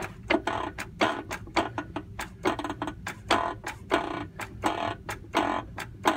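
Dake shop press being worked to force a steel screwdriver shaft home into an epoxy-filled handle. It makes a rapid, uneven run of sharp clicks, with a louder stroke about every 0.7 seconds.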